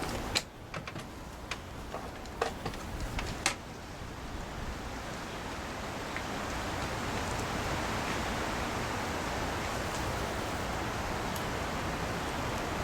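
Several sharp clicks and taps of hand work on a chainsaw in the first few seconds, then a steady hiss.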